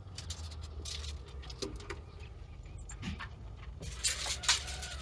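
Scattered light clicks, taps and scrapes of hand work, with a denser, louder cluster about four seconds in, over a low steady rumble.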